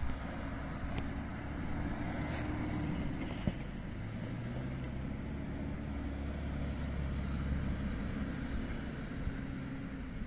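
Hyundai Galloper 2.5 TCI turbodiesel engine pulling the SUV up a rutted grassy slope, a steady low engine drone whose note shifts slightly partway through.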